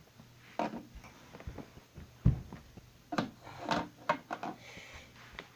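Scattered knocks, taps and light clatter of things being handled close to the microphone, with one louder thump a little over two seconds in.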